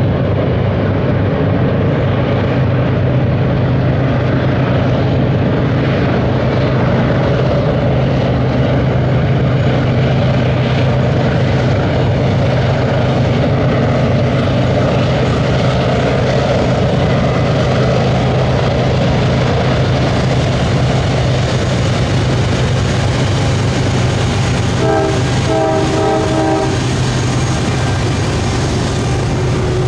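Norfolk Southern diesel locomotives hauling a coal train around a curve, their engines running with a steady low drone over the rumble of the cars. About 25 seconds in, a short horn blast lasts a couple of seconds, and faint wheel squeal from the curve comes in near the end.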